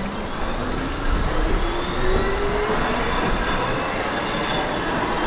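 NYC Subway R68-series train's traction motors whining, rising steadily in pitch as the train accelerates away from the platform, over the rumble of its wheels on the rails.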